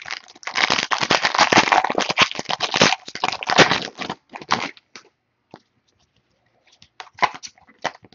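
Crinkling and crackling of a trading card pack's foil wrapper as it is torn open and the cards are pulled out. It is dense for the first few seconds, then dies away to a few scattered crackles near the end.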